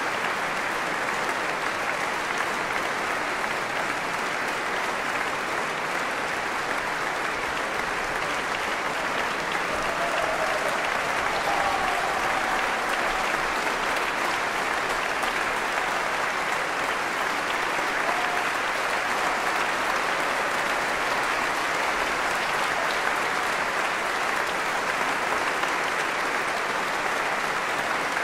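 Large audience applauding steadily in a concert hall.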